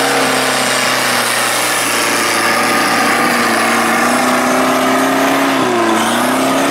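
Off-road Suzuki 4x4 on a steep dirt bank with its winch line taut, the engine held at steady high revs under load with a constant whine. The pitch dips briefly near the end and rises again.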